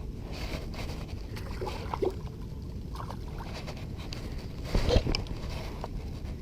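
Low steady rumble of wind on the microphone, with scattered light clicks and knocks, and one louder thump a little before five seconds in.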